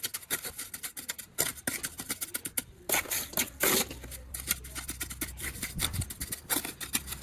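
Irregular scraping and tapping, with a low steady rumble coming in about four seconds in.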